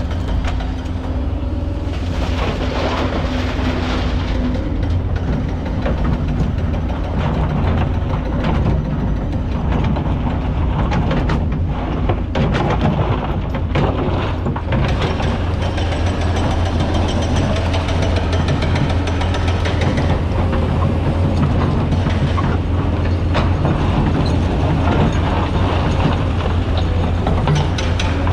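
Kobelco excavator's diesel engine running steadily under load as the bucket digs into hard black sand and stones, with scraping and clattering of the bucket against rock around the middle.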